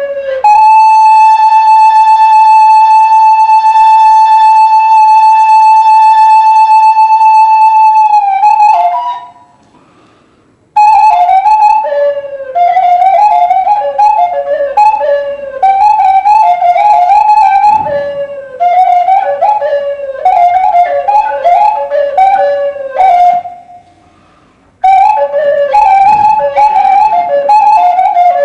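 Hmong raj bamboo flute playing a solo lament: one long held note of about eight seconds, then after a short pause, phrases of quick ornamented notes sliding between a low and a high pitch, broken by another brief pause near the end.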